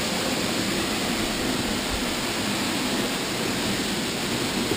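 Steady rushing roar of a tall waterfall, about 200 feet of fall, pouring into its pool.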